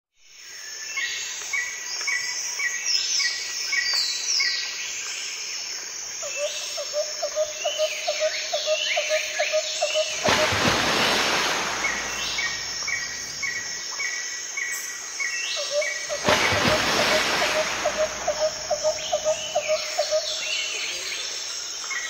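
Birds chirping and calling with insects, one of them repeating a short low note about three times a second. Two loud rushes of hissing noise come about ten and sixteen seconds in, each lasting a couple of seconds.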